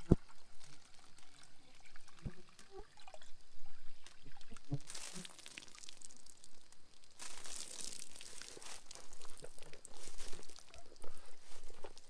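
Water poured from a dry bag into a hanging canvas Millbank filter bag, splashing and trickling into the cloth: dirty billabong water going in for filtering. A few knocks in the first few seconds, with the pouring heavier from about seven seconds in.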